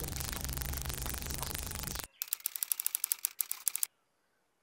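A loud hissing noise over a low hum cuts off abruptly about two seconds in, followed by a rapid run of sharp mechanical clicks, about a dozen a second, lasting under two seconds.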